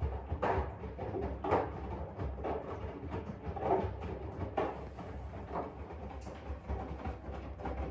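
AEG 7000 Series front-loading washing machine in its main wash: laundry swishing and sloshing in water as the drum turns, about once a second, over a low rumble.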